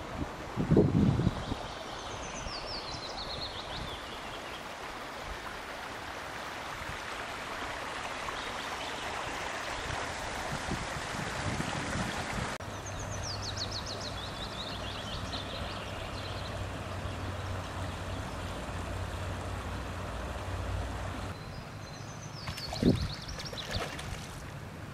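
Steady rush of running water into a pond. Near the end comes a sudden loud splash as a fish breaks the surface. A high descending trill sounds three times, and there is a low thump about a second in.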